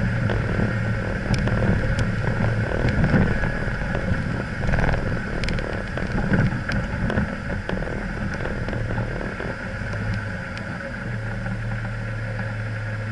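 A 4x4's engine running steadily at low speed while driving over a loose stone track, with scattered clicks and knocks through it.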